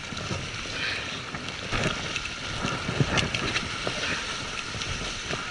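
Wind buffeting the microphone over the sea washing against a rocky shore, with a few short knocks about two and three seconds in.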